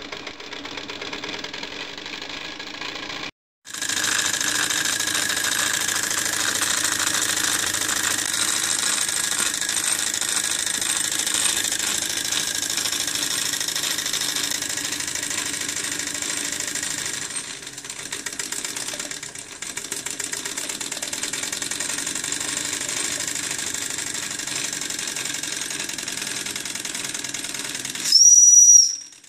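Wilesco model steam tractor's steam engine running fast and steadily, a rapid chuffing rattle as it belt-drives a small 12-volt DC motor as a generator. It cuts out briefly about three seconds in. Near the end the engine's steam whistle gives a short high note.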